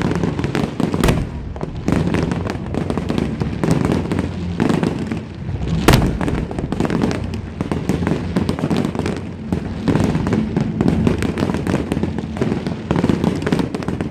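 Fireworks display: a dense, unbroken run of shell bursts and crackling, with one especially loud bang about six seconds in.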